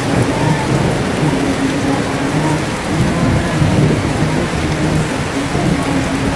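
Steady heavy rain with a low rumble of thunder. A low voice chanting shalawat in held notes sits faintly beneath it.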